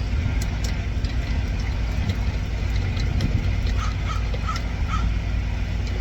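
Faint metal clicks and scrapes of a lockpick prying at the cap of a lock cylinder, over a steady low rumble. Four short chirps come near the end.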